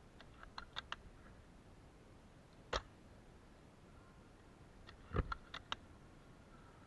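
Scattered sharp clicks and snaps: a quick run of small ones at the start, a single louder one about three seconds in, and a close cluster a little after five seconds in.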